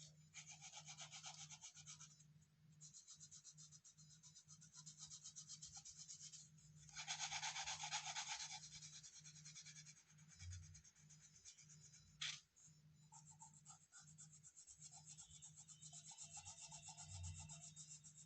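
Colouring on paper by hand: rapid back-and-forth scribbling strokes in several bouts with short pauses, the loudest bout about halfway through, and a single sharp click about two-thirds in.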